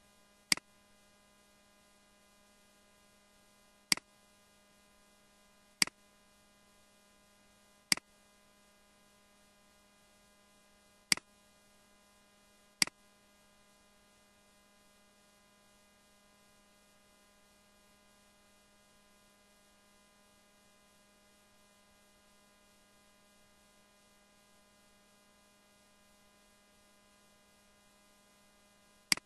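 Computer mouse clicking: seven single sharp clicks a few seconds apart in the first half and one more at the very end, over a steady electrical hum.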